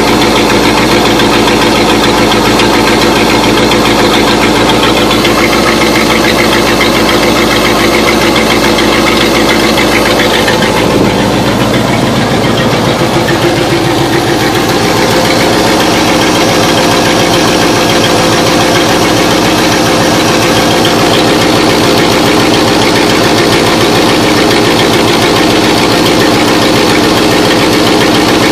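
Car engine running steadily at idle. The owner suspects an exhaust leak at the rear of each exhaust manifold. The sound changes slightly about 11 seconds in.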